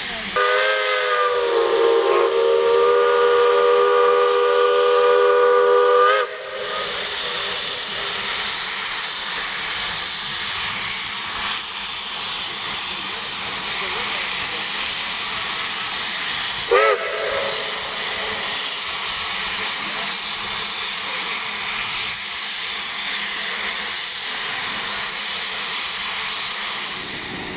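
A Shay geared steam locomotive's whistle blows one long blast of about six seconds, sounding a chord of several notes at once. Steady steam hiss follows, with one short toot about seventeen seconds in.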